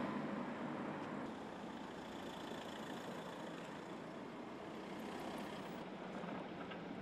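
Low, steady hum of vehicle engines running, with general street noise.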